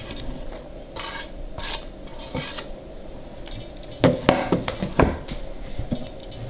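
Chopped dill swept by hand off a wooden cutting board into a plastic container, a soft rubbing scrape, with a few sharp knocks about four to five seconds in; then the dill is pressed down by hand in the container.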